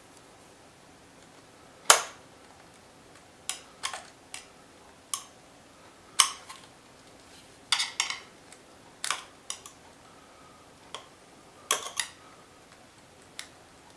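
Irregular small clicks and taps from handling the wires and parts of a DJI Phantom 2 drone while its cables are routed, about a dozen in all, the sharpest about two seconds in.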